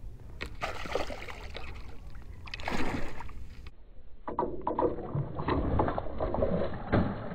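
Muffled underwater water noise, then from about four seconds in, repeated irregular splashing as a large bowfin thrashes and leaps out of the water at the surface beside a kayak.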